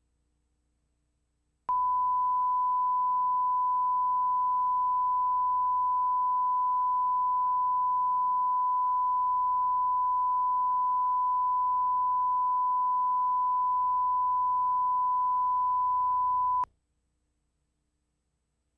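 Steady 1 kHz test tone, one unbroken pitch, coming in sharply about two seconds in, holding for about fifteen seconds, then cutting off abruptly, over a faint low hum.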